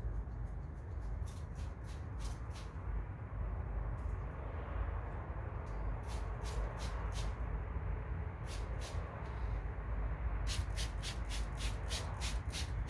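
Hand-trigger spray bottle misting purified water onto a plastic headlight lens: short hissing squirts in clusters, with a quick run of them near the end, over a steady low background hum.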